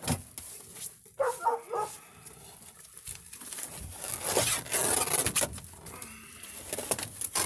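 A dog whining briefly about a second in, then a few seconds of rustling and scraping.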